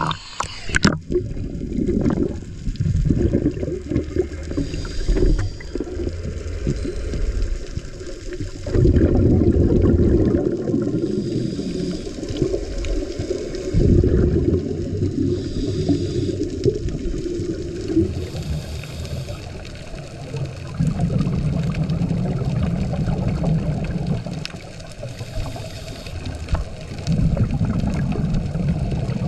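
Scuba divers' regulators heard underwater: exhaled air bubbles rumble and gurgle in swells about every six seconds, with fainter breathing hiss between. Near the start there are a few splashes as the camera goes under.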